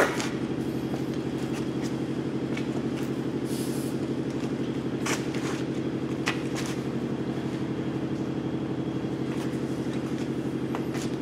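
Steady mechanical hum from a shop machine, with a slight even pulsing, and a few faint clicks and taps of tools being handled.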